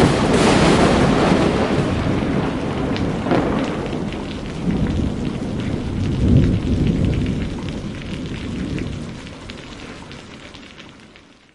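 Intro sound effect of rumbling, thunder-like noise over a rain-like hiss. It is loudest at the start, with a few louder swells in the middle, then fades steadily away to silence at the end.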